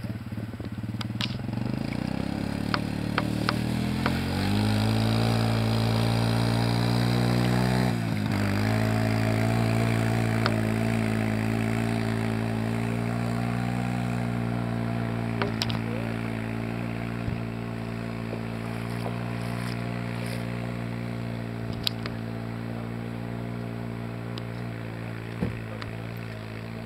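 ATV (quad) engine pulling a rider on a board through mud and water. It revs up over the first few seconds, drops off sharply about eight seconds in and picks up again, then runs steadily with its pitch slowly sinking, with a few sharp clicks.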